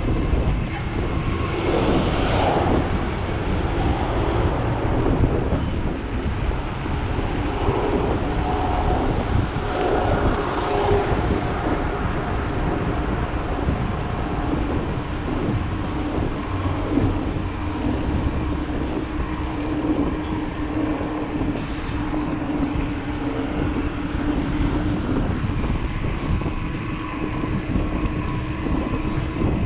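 Ride noise from an e-bike on a wet street: wind on the mic and tyres on wet asphalt make a steady rumble, under a faint steady hum that is clearest through the middle.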